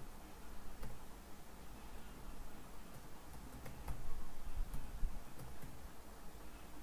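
Computer keyboard being typed on: a few faint, scattered keystroke clicks over a low hum.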